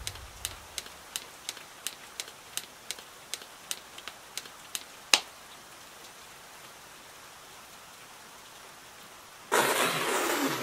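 A steady run of sharp ticks, about three a second, ends with one louder click about five seconds in. A faint hiss follows, then a loud burst of noise near the end.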